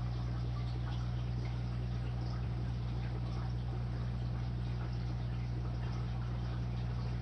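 Submersible aquarium filter running in a turtle tank: a steady low motor hum with water trickling and bubbles fizzing, flecked with tiny drip-like ticks.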